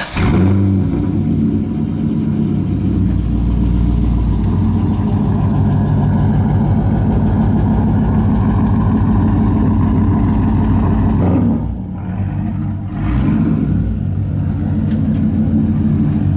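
C5 Corvette's V8 idling steadily just after start-up. The engine note shifts and dips briefly about eleven seconds in, with short flares of sound after that.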